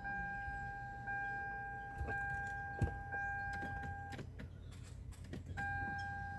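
Car's electronic warning chime: a steady beeping tone, re-struck about once a second. It stops about four seconds in and starts again a second and a half later, over a steady low hum.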